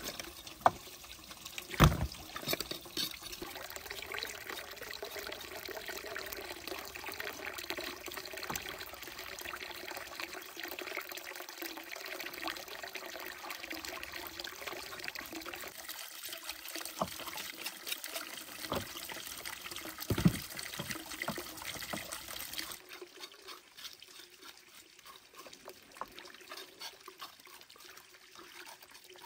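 Water trickling and pouring steadily, with a few sharp knocks, the loudest about two seconds in and again about twenty seconds in. The water sound drops quieter about three-quarters of the way through.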